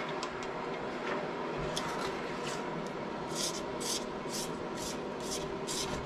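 Silicone spatula stirring sugar syrup in a stainless steel pot, scraping across the pot's bottom and sides. From about three seconds in the strokes come regularly, two to three a second.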